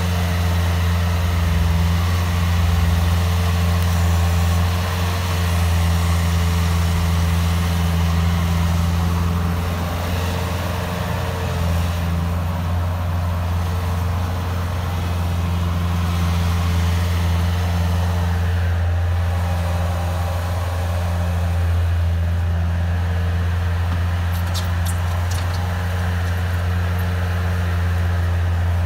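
Bobcat S130 skid-steer loader's diesel engine running steadily with a low drone as the machine pushes and piles snow with its bucket.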